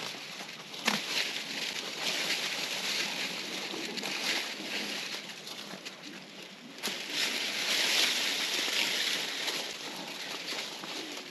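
Dry corn stalks and their dead leaves rustling and crackling as they are cut and pulled from a standing patch, with a sharp snap about a second in and a louder stretch of rustling from about seven to nine and a half seconds in.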